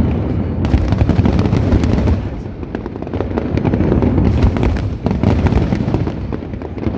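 Fireworks show: a rapid, continuous barrage of bursting shells, dense crackling over deep booms with no pause.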